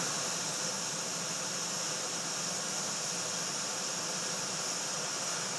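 Heat gun blowing a steady hiss of hot air under a circuit board, heating the pads until the solder melts.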